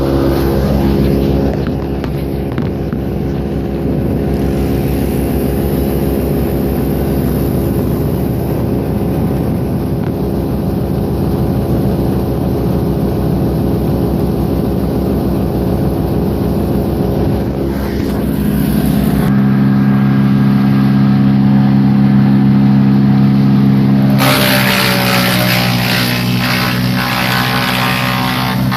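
Engine of a 6-inch tow-behind wood chipper running steadily. Near the end a loud rough noise joins in and the engine note changes.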